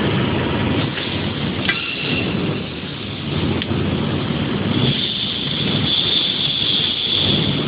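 Steady workshop machinery noise, a rumbling hiss, with a thin high whine that comes in about five seconds in.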